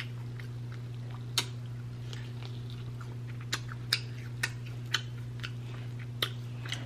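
Close-miked chewing of sticky glazed lamb chop meat: scattered wet mouth clicks and smacks at irregular intervals, over a steady low hum.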